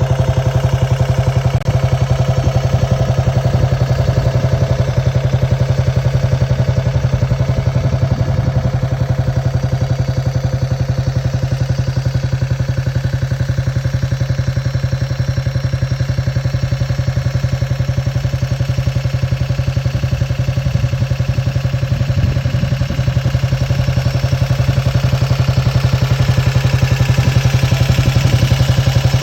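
1953 Horex Regina motorcycle's single-cylinder four-stroke engine running steadily at idle, its firing pulses coming at an even pace. It gets a little louder near the end.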